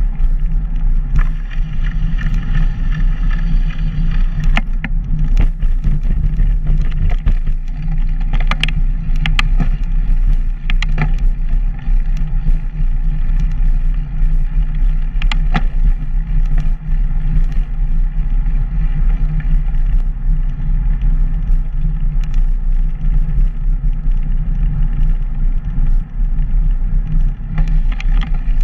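Steady low rumble of wind buffeting the microphone and rolling noise while riding along a paved trail, with faint steady tones above it. A few sharp clicks come about a third and halfway through.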